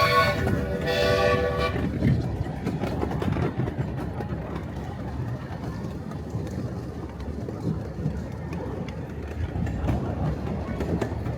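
Miniature railway locomotive's chime whistle sounding a blast that stops about two seconds in, then the train rolling along with a steady rumble and the click of wheels on rail joints.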